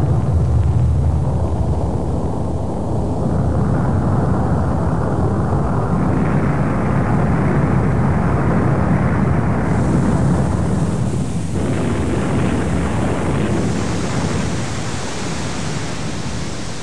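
Deep, steady rumbling roar of a volcanic eruption, with no speech. It turns brighter and hissier in steps several times along the way.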